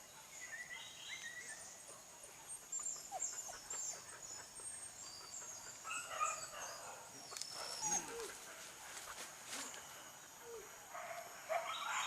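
Faint, scattered yelps and barks of hunting dogs on a wild boar hunt, with high bird chirps throughout.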